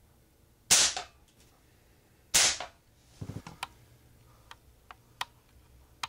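Crosman American Classic multi-pump pellet pistol fired twice: two sharp cracks about a second and a half apart. A few lighter clicks and knocks follow.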